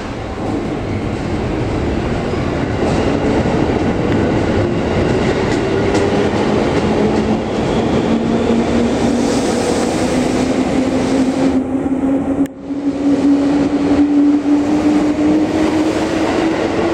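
JR 205 series electric train pulling out of a station and accelerating past. Its DC traction motors whine with a pitch that climbs slowly as speed builds, over the running noise of the cars.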